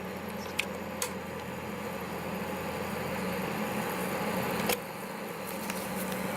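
Steady kitchen background hum with a few faint clicks, slowly growing a little louder.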